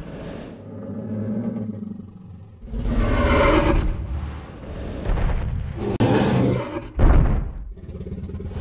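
Tyrannosaurus rex roar sound effect for an animated dinosaur: a long, deep, rumbling roar about three seconds in and a second roar around six seconds. A heavy thump follows about seven seconds in.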